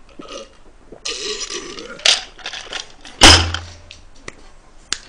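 A man reacts out loud just after gulping a drink: a strained, breathy exclamation, then a loud belch about three seconds in, the loudest sound here, with a few small knocks near the end.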